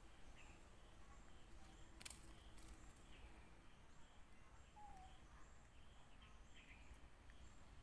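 Near silence: faint outdoor ambience with a few faint, short bird chirps and a couple of faint clicks about two seconds in.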